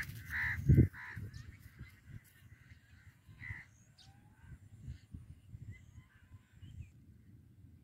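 A few scattered bird calls, the clearest near the start and about three and a half seconds in, over a low rumbling noise on the microphone.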